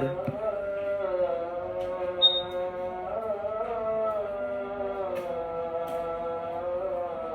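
Background music: a melody of long held notes that glide slowly in pitch, like singing or chanting.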